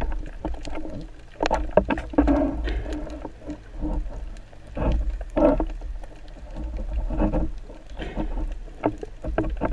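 Underwater handling noise: irregular sharp clicks and knocks with a steady low rumble and water sloshing, louder in a few uneven surges, as a speared fish is gripped and worked along the spear shaft.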